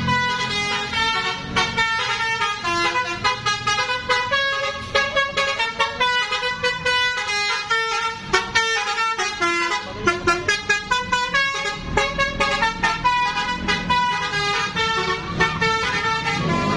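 Basuri telolet multi-tone bus horn playing a quick melody, several horn tones sounding together and stepping from note to note several times a second.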